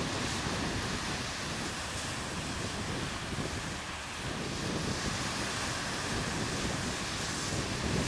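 Surf breaking and washing up a sandy beach, a steady rush, with wind buffeting the microphone.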